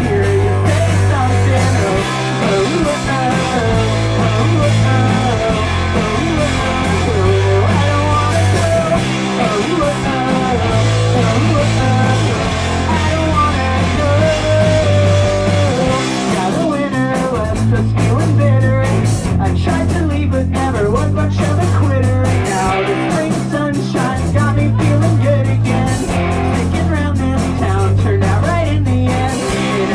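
Live rock band playing a song on guitar, bass and drums. The drums come forward about halfway through.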